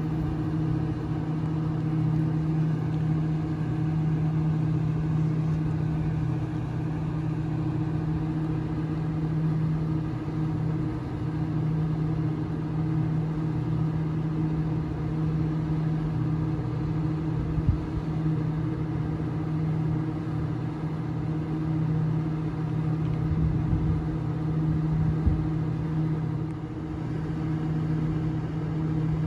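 Stationary Waratah double-deck electric train standing at the platform, its onboard equipment giving a steady low hum with two held tones. A small knock is heard near the end.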